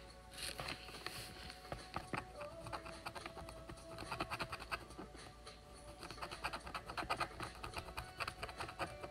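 Wooden stylus scratching the black coating off a scratch-art board in quick, irregular strokes, starting about half a second in.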